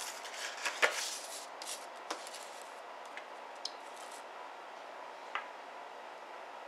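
Hands rustling a paper plate and setting a brass 12-gauge shotgun shell on it, with a few light clicks and taps of small items on a tabletop over low room tone. The rustling comes in the first second or so; after that only a handful of single light taps.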